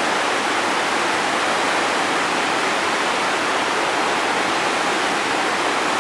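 Whitewater river rapid rushing over rock ledges and a small drop: a steady, unbroken rush of turbulent water.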